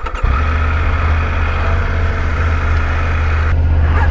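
Adventure motorcycle engine running at a steady low drone, heard with wind rush on the rider's handlebar or helmet camera microphone. It cuts in suddenly, and the wind hiss thins about three and a half seconds in.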